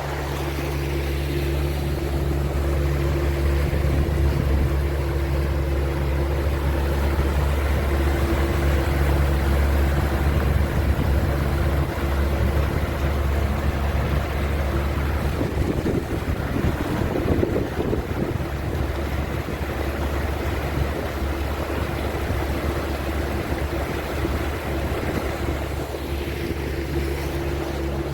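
Motorboat engine running steadily under way, with wind noise on the microphone and water rushing past the hull.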